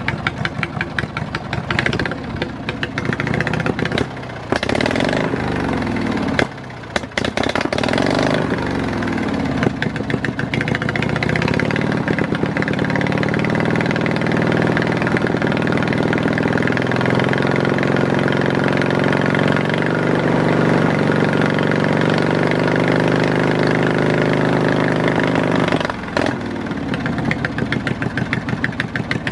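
Opposed-twin lawn mower engine running through open straight pipes, one of them a tuned pipe: it is blipped a few times, then held at high revs for about fifteen seconds before dropping back to idle near the end.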